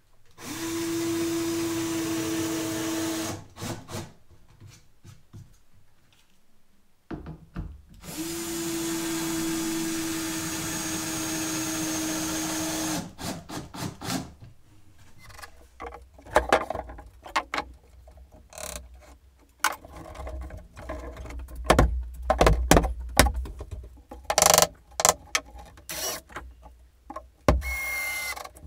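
Cordless drill running twice, for about three seconds and then about five, boring pilot holes in the ends of pine floor boards so they don't split. Then an irregular run of sharp knocks and clatter, some louder than the drill.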